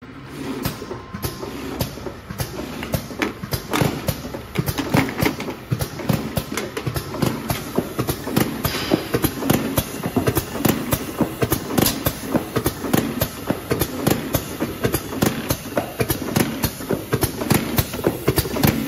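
Automatic hot melt labeling machine running, its conveyor carrying plastic bottles, with a dense, irregular clatter of clicks and knocks over a steady mechanical hum.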